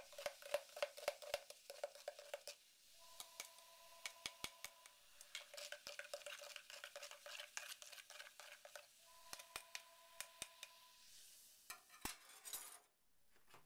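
A plastic spoon stirring a liquid slurry of copper acetate and baking soda in a plastic cup, clicking and scraping against the cup's sides many times over.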